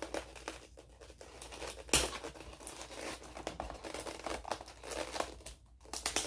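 Packing materials being handled and pulled apart by hand: irregular crinkling and crackling of wrapping, with a sharp snap about two seconds in.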